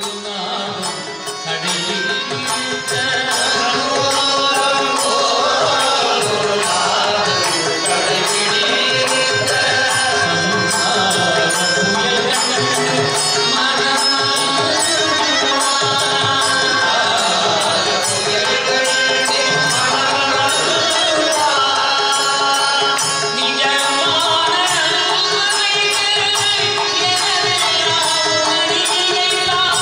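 Male voices singing a Tamil devotional bhajan in Carnatic style, with harmonium and drum accompaniment keeping a steady beat.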